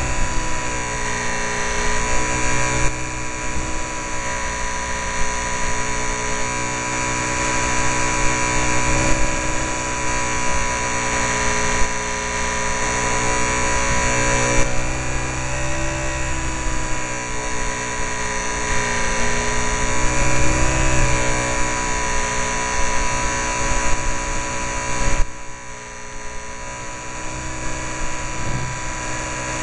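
Small RC airplane's motor and propeller running, heard from a camera on board the plane: a steady whine whose pitch wavers a little with the throttle. It eases off and gets quieter for a moment near the end.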